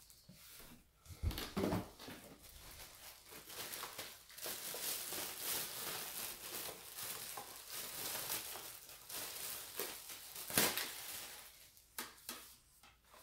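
Packaging being handled and unwrapped: rustling, crinkling plastic and paper. There are a couple of sharp knocks near the start and near the end.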